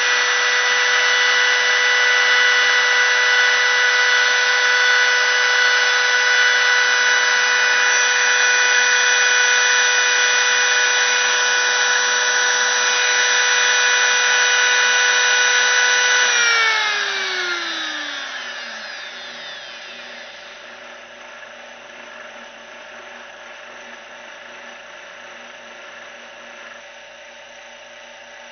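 CNC router spindle running with a steady high-pitched whine, then switched off about two-thirds of the way through, its pitch falling as it spins down. A quieter steady hum carries on afterwards.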